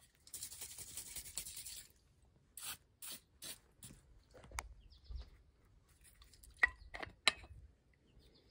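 Ballistol aerosol can spraying onto powder-fouled revolver parts: one hiss of about a second and a half, then several short bursts. A few light clicks follow near the end.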